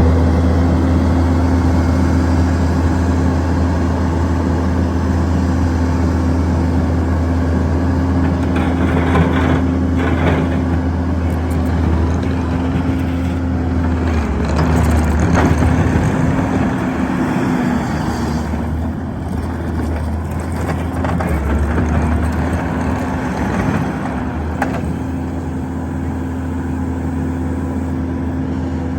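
Kubota SVL75-2 compact track loader's four-cylinder turbo diesel running steadily, its note wavering and shifting for several seconds around the middle.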